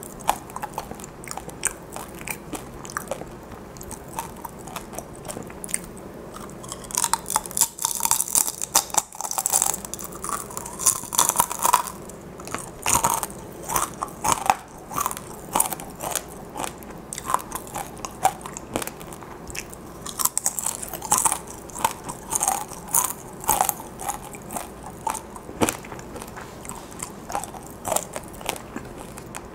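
Crunching and chewing of crisp fried dried chili peppers (gochu-twigak), many sharp crunches coming in quick runs, loudest from about a quarter to two-fifths of the way in.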